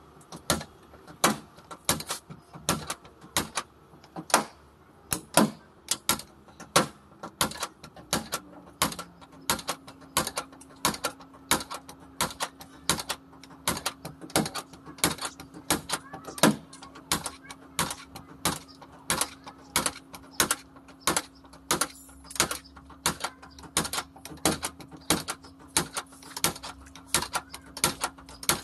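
Car-body dent puller with a slide hammer worked along a door's lower panel: a rapid, regular run of sharp metallic clicks, about two a second. A low steady hum joins about eight seconds in.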